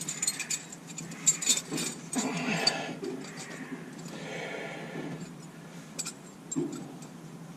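Small metal Allen keys clinking and jangling as they are handled and tried, one size after another, in the gear knob's screw, with scattered sharp clicks.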